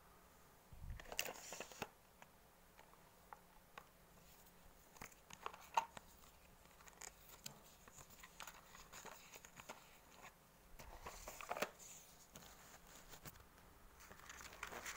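Faint handling noise from plastic stationery cases and sticker sheets being picked up and touched: scattered small clicks, taps and rustles in a few short clusters.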